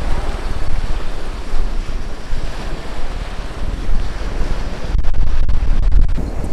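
Strong wind buffeting the camera's microphone, a loud, gusting low rumble, with a stronger gust about five seconds in.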